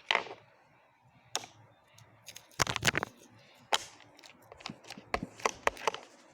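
Homemade clear slime being handled: irregular sticky clicks and squelches, with the loudest cluster about two and a half seconds in and more scattered through the rest.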